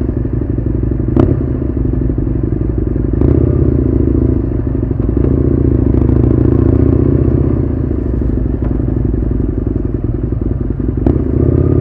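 Husqvarna Nuda 900R parallel-twin motorcycle engine running, heard close up, its note swelling a little a few seconds in and easing off later. A few sharp clicks sound over it.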